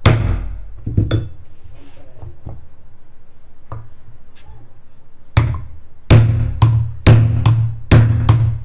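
Hammer blows on a steel shaft held against the brass bush of a metal mixer-grinder jar, knocking out the worn bush. Two blows come near the start, then a pause, then a run of about two blows a second from about five seconds in.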